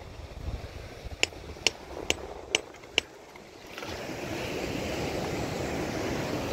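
Five sharp hammer strikes on rock, about two a second, each with a brief metallic ring. About four seconds in, a steady rushing noise of wind or surf comes up.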